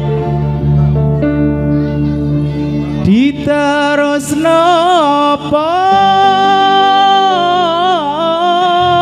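Live music for a Topeng Ireng dance: sustained instrumental chords over a deep bass. About three seconds in a voice slides up and begins singing long held notes that waver in pitch.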